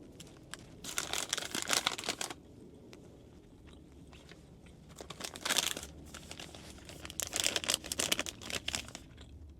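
Snack packaging being handled, crinkling and rustling in three bursts with quiet between them.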